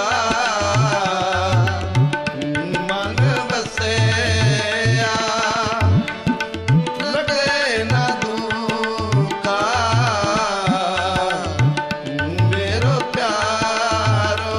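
A song: a singer's wavering voice over tabla and a steady, repeating low drum beat.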